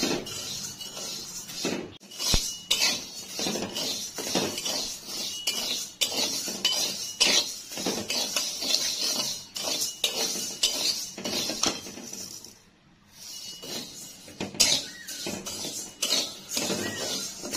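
Slotted metal spatula scraping and clinking against a metal wok while stirring small dry seeds as they dry-roast, the seeds rattling over the bare metal. The strokes come in quick, irregular succession, with a brief pause about three-quarters of the way through.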